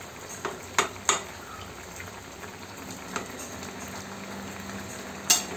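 Fish curry sizzling and simmering in a frying pan, with a few light clicks of a metal spatula against the pan and one sharp knock near the end.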